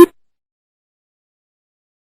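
The last deep hoot of a greater coucal's rapid hoop-hoop call series, a recorded decoy call, cuts off right at the start, followed by total silence.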